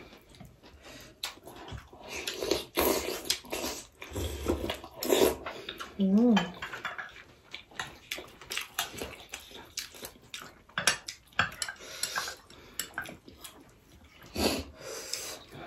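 Mukbang eating sounds: metal spoons clinking and scraping on glass plates and soup cups, with slurping and chewing of momos and soup. A brief hummed "mm" about six seconds in.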